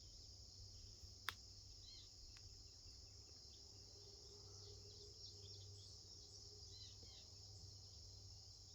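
Faint outdoor ambience: a steady, high-pitched chorus of insects such as crickets, with a few short faint chirps scattered through it and a single sharp click about a second in.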